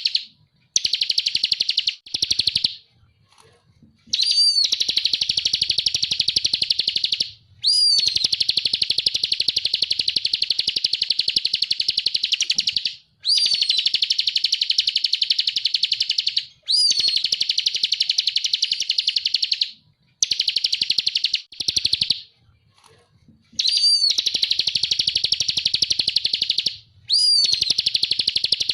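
Ciblek kristal prinia singing loud, fast chattering trills of rapidly repeated high notes. The phrases run for several seconds each, many opening with a short rising note, and are broken by brief pauses.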